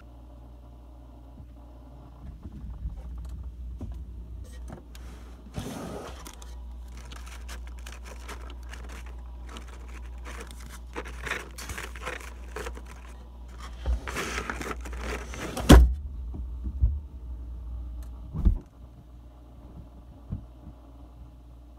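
Foil seed pouches crinkling and rustling as they are handled and sorted in a row. The crinkling comes in runs, busiest in the middle, and there is a sharp knock about two-thirds through and another a few seconds later. A steady low rumble lies underneath.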